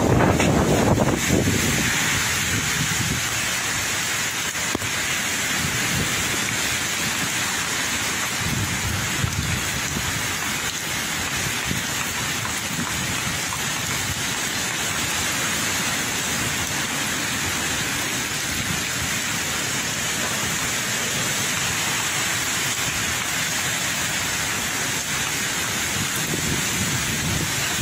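Heavy typhoon rain falling steadily, with a louder low rumble in the first second or two.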